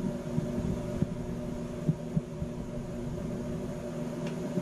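Steady hum of fans running: a bathroom exhaust fan with a powered flow meter's built-in calibrated fan held against it, zeroing the pressure across the vent to measure the exhaust flow. A few soft knocks from handling the meter.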